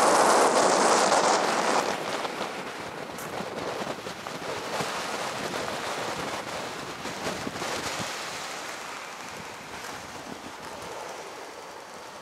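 Very strong wind buffeting the microphone, a rushing noise without any tone that is loudest for the first couple of seconds and then eases off gradually.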